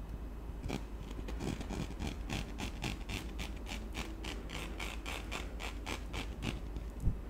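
Fingernails tapping and scratching on a rhinestone-studded plastic phone case, a quick run of small clicks about three or four a second that starts about a second in and stops just before the end. A soft thump closes it.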